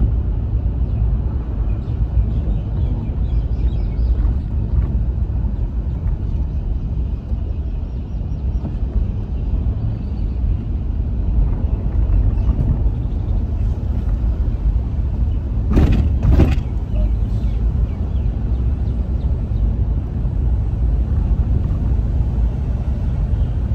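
Mercedes-Benz car driving slowly, a steady low rumble of engine and road noise heard from inside the car. About sixteen seconds in there are two brief sharp noises.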